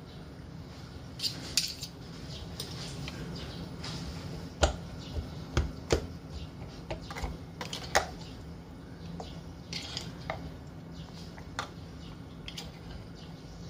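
Metal fork clinking and tapping against a ceramic bowl as it pierces and stirs marinated pork pieces to tenderize them. The taps are irregular, with the sharpest knocks around the middle, over a steady low hum.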